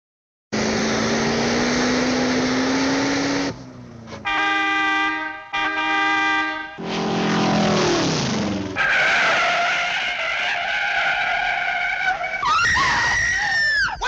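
A run of cartoon sound effects, one after another: a noisy buzz with a slowly rising tone, two long buzzy tones with a short break between them, a falling pitch slide, a high screech, and a wobbling warble near the end.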